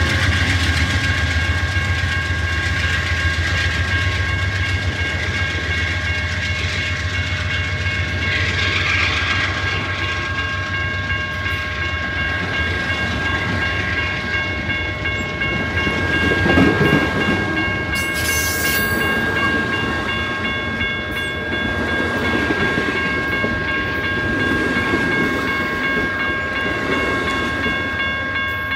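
Amtrak passenger train passing close by: the diesel locomotives' low drone fades in the first couple of seconds, then Superliner bilevel cars roll past with wheels clicking over the rail joints. Steady high tones ring over the rumble throughout, with a brief louder swell a little past halfway.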